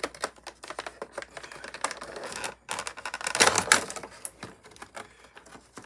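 Quick irregular clicks and crinkles of packaging being handled as a die-cast model airliner is worked out of its box, with a louder cluster about three and a half seconds in.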